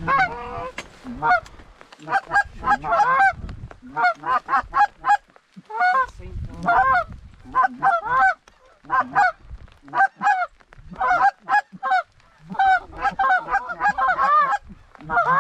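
Canada goose honks and clucks in quick runs of short calls, several at a time, with brief gaps between the runs. Low rumbles come and go beneath them.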